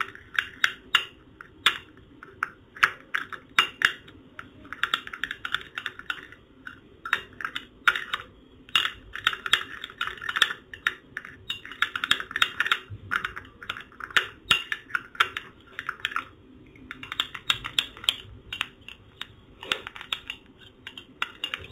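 Metal spoon stirring gram flour and water into a paste in a small glass bowl: rapid clinking and scraping of the spoon against the glass, in runs with short pauses.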